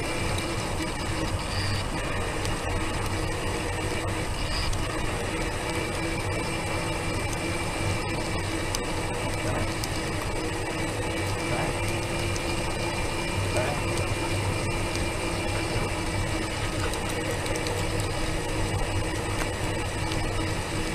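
Steady mechanical whirring and rattling, with a constant hum, from the small vehicle the camera rides on as it rolls along at walking pace.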